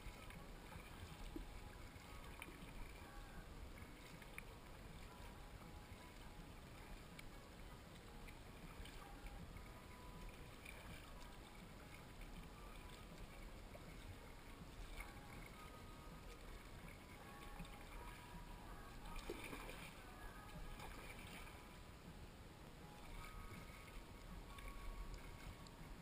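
Faint sound of a kayak gliding on a calm river: soft water lapping against the hull and paddle, with a low rumble on the microphone.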